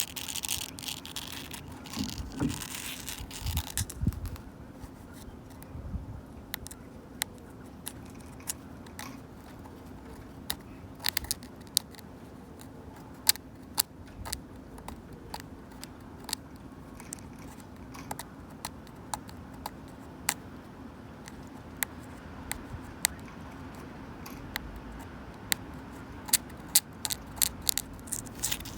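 Long natural fingernails scratching and clawing a wooden bench for the first few seconds, then clicking and tapping on the wood in sharp, irregular clicks, some coming in quick clusters.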